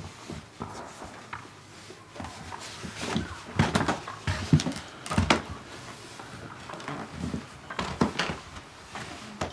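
Irregular knocks, clicks and rustling in a small room, from someone moving about and handling a flat board or frame. The sounds are loudest in the middle, with one more sharp knock near the end.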